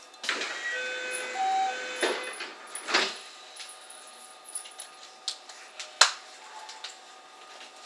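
A short electronic chime of a few notes in the first two seconds, followed by scattered sharp clicks and knocks, the loudest about six seconds in.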